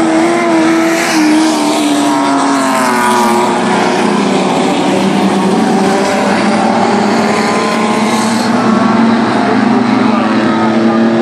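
A field of speedway sports sedans racing on a dirt oval: several car engines running hard at once, loud and steady. Their pitch slides down about two seconds in as cars go past.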